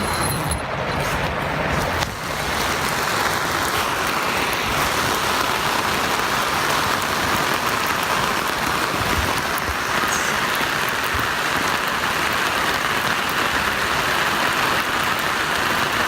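Steady rain from a passing storm, an even hiss.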